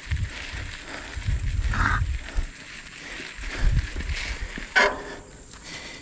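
A cow making low, rough calls in a few short bouts, the longest about a second in.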